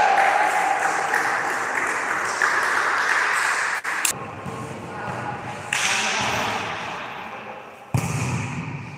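Players' voices echoing around a large gym hall during a volleyball game, with a thud of the ball being struck about eight seconds in.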